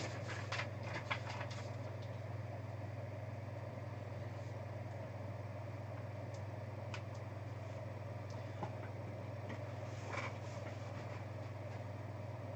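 Steady low hum of room tone, with a few faint clicks near the start and twice more later on.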